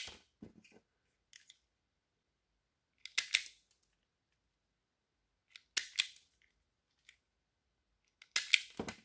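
Hand wire strippers working on wire ends four times, about every two and a half to three seconds. Each stroke is a quick cluster of clicks and snaps as the jaws grip and strip the insulation off.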